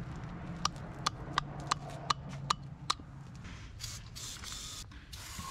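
A run of about seven sharp clicks, roughly two a second, then an aerosol spray can hissing in short bursts about four seconds in.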